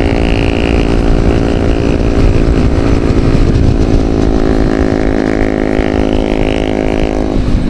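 A motor vehicle's engine runs at a steady pitch over a heavy rumble of road and wind noise. The engine tone drops away near the end.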